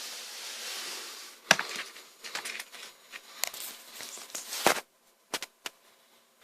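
Handling noises from the cordless vacuum and its battery pack: a rustling hiss for about a second and a half, then a run of sharp clicks and knocks, the loudest a little over four and a half seconds in, and three lighter clicks shortly after. No motor is running.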